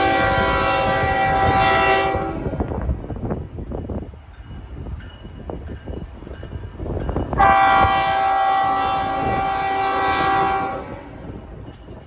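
Locomotive air horn sounding two long blasts of several tones at once, the second beginning about halfway through. Under them runs the steady rumble and clatter of train wheels rolling over the rails.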